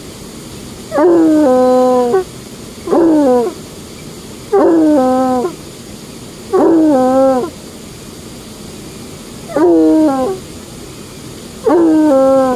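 Bluetick coonhound baying: six short howls, each about a second long and spaced roughly two seconds apart, each starting high and dropping to a held lower note. A steady rush of falling water from a small dam spillway runs underneath.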